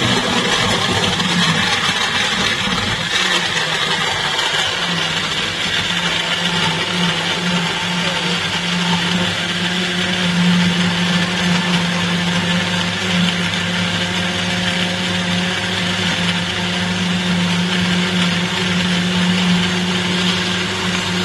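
Countertop blender motor running at a steady speed, puréeing fruit, yogurt and water into a smoothie: an even motor hum with a whirring hiss over it.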